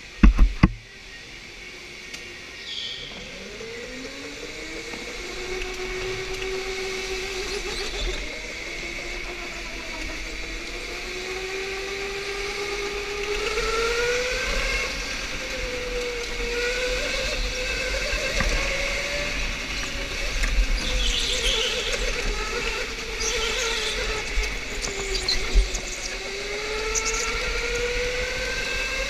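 Electric go-kart motor whining, its pitch rising and falling as the kart speeds up and slows through the corners, over a low rumble of wind and vibration on the helmet camera. A few sharp knocks in the first second, and brief high squeaks about two-thirds of the way in.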